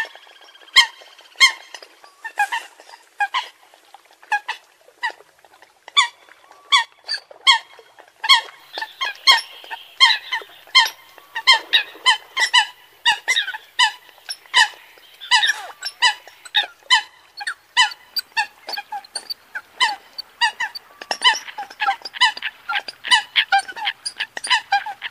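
Eurasian coots calling: a rapid, irregular run of short sharp calls, several a second, going on without a break.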